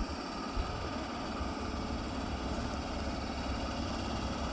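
PKP ET22 electric locomotive standing with its machinery running: a steady mechanical hum and whirr with a few faint steady tones in it.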